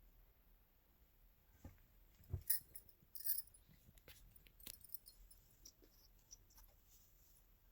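A quiet room with scattered soft clicks, rustles and knocks. The loudest is a dull thump about two and a half seconds in, followed by a brief rustle near three and a half seconds.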